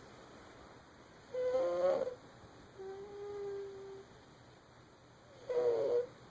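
Baby snoring in a slow rhythm: two rough, pitched snores about four seconds apart, with a softer steady hum of about a second between them.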